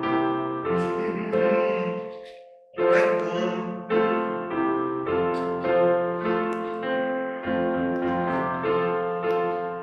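Piano playing slow chords. The music fades almost to silence about two and a half seconds in, then comes back with a strong chord.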